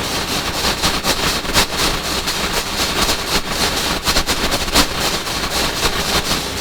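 Water well drill rig running, with a dense, rapid, irregular clatter over a steady machine noise.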